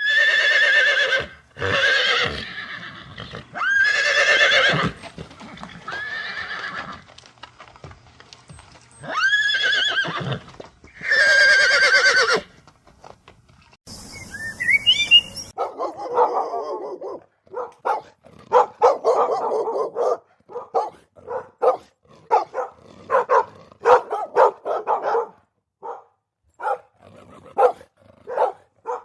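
A horse neighing: about six whinnies, each a second or so long, in the first twelve seconds. After a brief rising squeak, a dog barks in quick, repeated barks through the rest.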